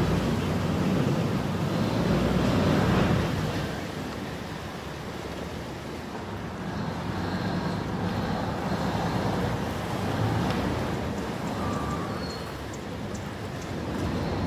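Canal taxi boat on the water: engine running with churning water and wind on the microphone. The noise is loudest for about the first three seconds, then settles lower and swells and eases.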